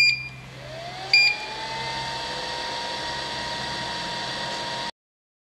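A 3D sublimation vacuum heat press beeps twice as its start button is pressed, the second beep about a second after the first. Its vacuum pump motor then starts, its whine rising in pitch and settling into a steady hum with a hiss as the machine begins a heating cycle. The sound cuts off suddenly near the end.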